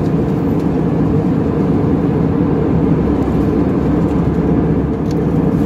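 Steady cabin noise of an Airbus A320 in flight, heard inside the cabin: an even, unbroken rush of engine and airflow noise, heaviest in the low end.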